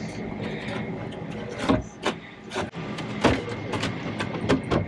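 A wooden cabinet panel slides into its trim frame and is knocked into place: a brief rub, then a series of sharp wooden knocks from a couple of seconds in. A steady hum runs underneath.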